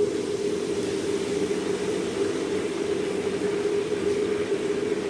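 A steady mechanical hum with a constant low drone and a wide hiss above it, like an appliance motor or fan running.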